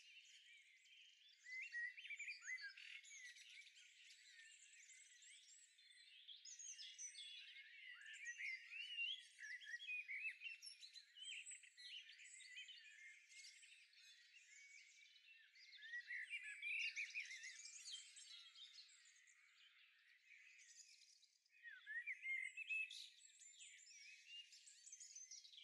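Faint birdsong: several birds chirping and warbling in bursts, with short lulls between.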